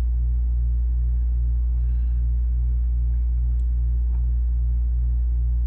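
Steady low electrical hum, mains hum with its overtones, running unchanged, with a few faint light ticks.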